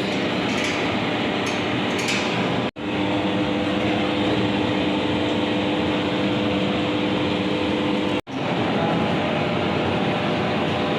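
A steady blowing, machine-like noise with a low hum, cut off abruptly twice for a split second.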